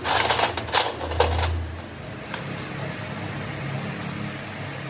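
Oily steel bolts and small hydraulic-assembly parts clinking and sloshing in a metal basin of dark liquid as hands scoop and scrub them. This is a flurry of rattles over the first two seconds, then a steady low hum underneath.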